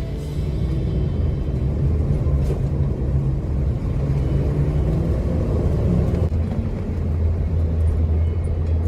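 Car driving, a steady low engine and road rumble.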